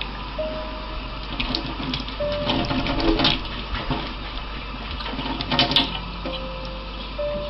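Water running from a kitchen tap into a stainless steel sink, splashing louder about three seconds in and again near six seconds as a cat paws at the stream. A simple background tune of single held notes plays along.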